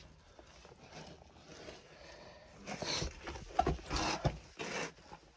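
A person clambering through a muddy, rubble-strewn passage: quiet at first, then a run of five or six short scuffing, squelching and breathing noises in the second half.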